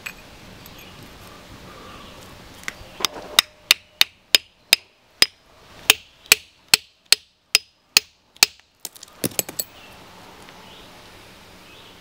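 Hammer striking a metal chisel held on a small garnet-bearing rock to split it: about fifteen sharp, ringing strikes at roughly two a second, starting a few seconds in, then a quick run of lighter taps before they stop about three quarters of the way through.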